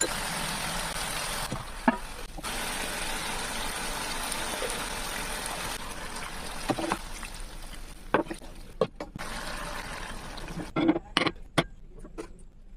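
Food cooking in a pan with a steady sizzling hiss and a few light utensil clicks. The hiss stops about eleven seconds in, followed by several short knocks and clinks.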